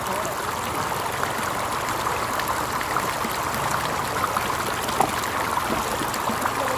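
Shallow floodwater rushing steadily over a dirt road, with a few small splashes and clicks from hands working in the water and mud, one a little louder about five seconds in.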